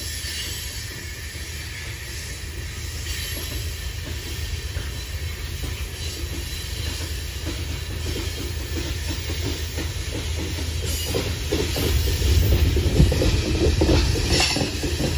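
Coal hopper cars of a long freight train rolling past: a steady low rumble of steel wheels on rail with irregular clacks, growing louder toward the end.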